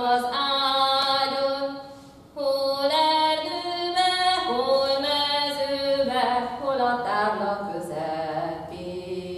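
A woman singing a Matyó Hungarian folk song solo and unaccompanied, in long held notes. Her phrases break briefly about two seconds and six seconds in.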